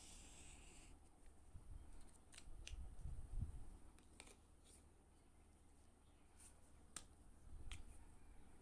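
Faint handling of stationery and packaging: a short rustle in the first second, then a few scattered light clicks and taps.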